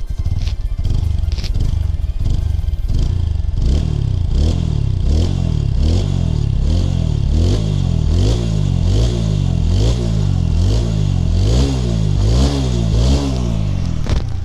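TVS Apache RTR 160 4V single-cylinder motorcycle engine idling, then revved in quick repeated throttle blips from about three seconds in. The exhaust runs smooth, without the 'phat phat' of a burnt-through inner silencer pipe, after the pipe was drilled and gas-welded.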